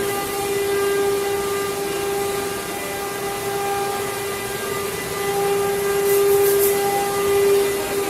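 CNC wood-carving machine's spindle motor running at speed, a steady high whine over the rushing noise of cutting. There are a few brief hissy bursts about six seconds in.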